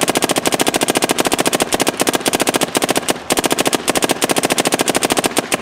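Dye M3+ electronic paintball marker fired rapidly on semi-auto, a fast string of sharp pops with a few brief breaks, one about three seconds in. The marker is set with raised maximum rate of fire and lowered trigger sensitivity.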